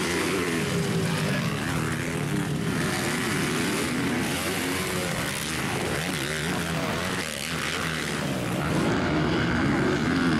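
Several motocross dirt bikes racing, their engines revving hard, with overlapping engine notes rising and falling in pitch as the riders throttle on and off.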